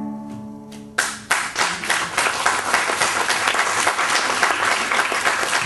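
A guitar's final chord rings and fades. About a second in, an audience breaks into applause, which goes on steadily.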